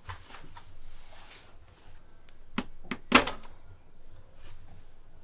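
A wall-mounted flat-screen TV on a swing-out mount being pulled out from the wall by its handle: small clicks and knocks, then a sharp thunk about three seconds in. The mount is a bit stiff.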